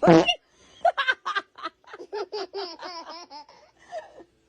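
A short loud vocal burst at the start, then high-pitched laughter in a rapid run of short pulses, about five a second, that fades out about three and a half seconds in.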